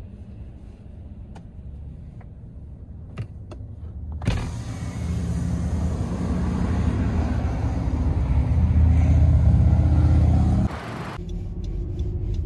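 Car driving slowly, heard from inside: a low hum with a few faint clicks, then about four seconds in a sudden loud rush of road and engine noise that builds and cuts off sharply near the end.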